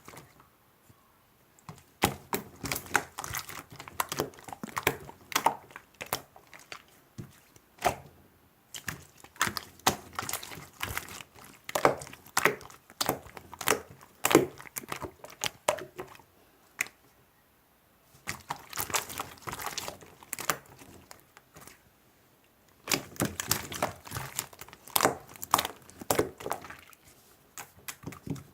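Slime being squished and worked by hand, making runs of sharp crackling clicks in bursts with short pauses between them.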